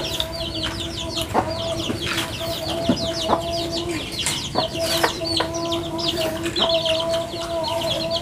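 Chickens calling close by: a rapid, continuous stream of short, high, falling peeps, over a steady low hum and a few soft clicks.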